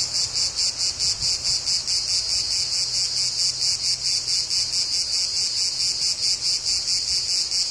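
Insects chirping in a steady, high-pitched, pulsing rhythm of about four to five pulses a second.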